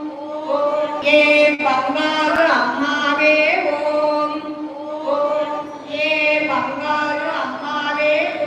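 Voices singing a devotional chant in long held notes that slide from one pitch to the next.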